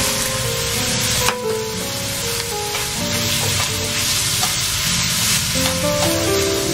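Pork and vegetables sizzling in a frying pan while being stirred and turned with a metal spatula, with one sharp knock about a second in. Background music of short pitched notes plays over it.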